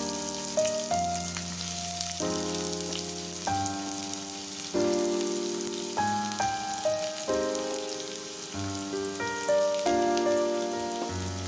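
Sliced onions sizzling in hot oil in a kadhai, a steady hiss. Background music with sustained chords changing about once a second plays over it.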